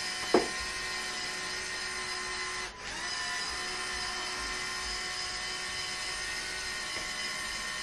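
Electric motors and gearing of a LEGO Technic 42100 Liebherr 9800 excavator whining steadily as the upper body slews round 180 degrees. The whine drops out for a moment a little under three seconds in, then carries on.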